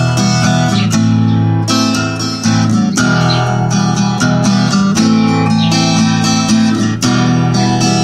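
Acoustic guitar strummed in an instrumental break of a song, with no voice.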